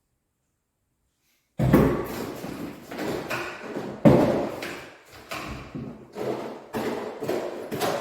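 Irregular knocks and clatter of hard objects being handled, starting abruptly about a second and a half in, with two louder thumps near the start and about four seconds in.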